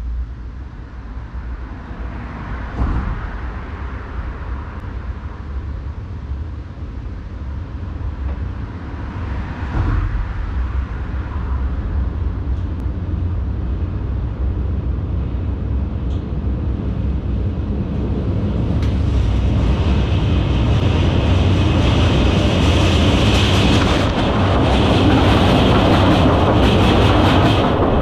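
Passenger train approaching over a steel truss railway bridge: a low rumble that grows steadily louder, with two sharp knocks in the first ten seconds. About two-thirds of the way in, a loud hiss with high ringing tones from the rails joins and builds until the end.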